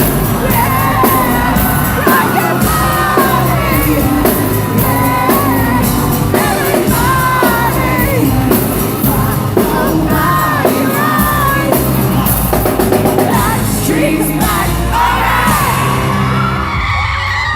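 Loud rock music with a singing voice and yelling and whoops over it.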